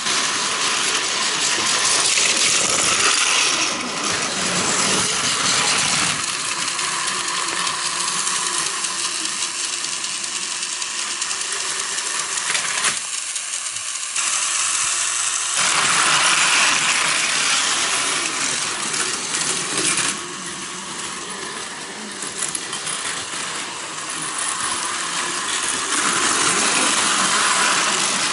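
Battery-powered Plarail toy Shinkansen trains, a 700 series Hikari Rail Star and a 0 series, running on plastic track: a steady clattering rattle of small motors, gears and wheels on the track. It swells and fades several times as the trains pass closer to and farther from the microphone.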